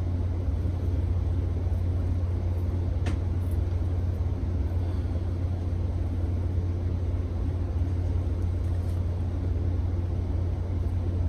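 A steady low-pitched hum, with one faint click about three seconds in.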